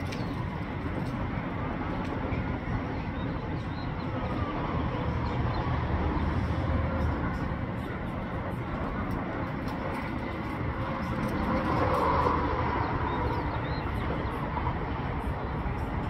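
Steady low background rumble that grows louder for a moment about twelve seconds in.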